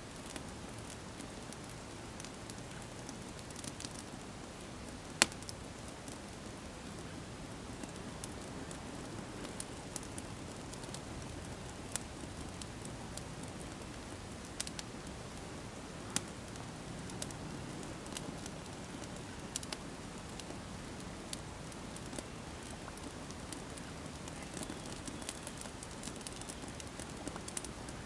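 A sneaker burning: a steady low rush of flame with scattered sharp crackles and pops, the loudest about five seconds in.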